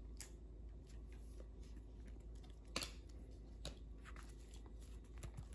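Faint handling of trading cards and a foil card pack by hand: a few light clicks and taps as cards are set down and the pack is picked up, over quiet room tone.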